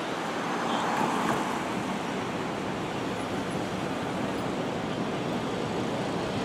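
Steady city street traffic noise from passing cars and engines, swelling briefly about a second in.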